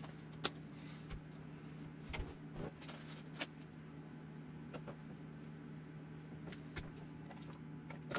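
Scattered light clicks and taps of small parts and tools being handled on a workbench while zip ties are fetched, over a steady low hum.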